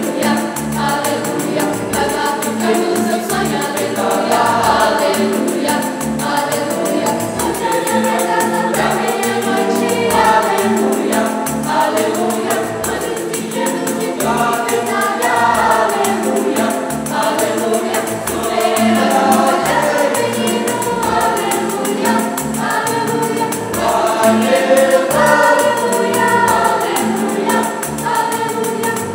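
Youth choir of mixed boys' and girls' voices singing together, with a tambourine played along to the beat.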